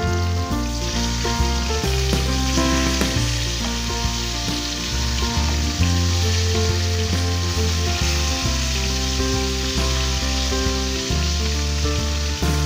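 Whole fish sizzling as they fry in hot oil in a frying pan, the sizzle thickening about half a second in as they are turned with a slotted spoon and a wooden spatula. Background music with a bass line plays over it.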